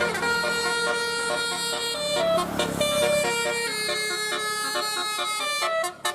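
Bus 'telolet' Basuri musical horn playing a quick melody, its notes stepping up and down every fraction of a second, with a brief break just before the end.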